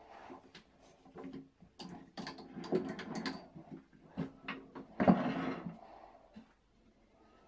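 Irregular clicks, knocks and short scraping rattles from the stopped wood lathe as a bowl is taken off from between centres, with the loudest knock about five seconds in.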